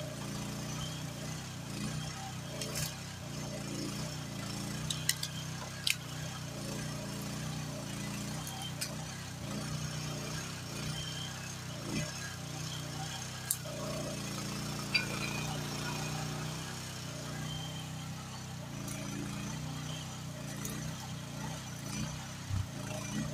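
Groundhog KH14G mini excavator's engine running steadily while the boom works, with a scattering of sharp clinks and knocks from the attachment among the brush.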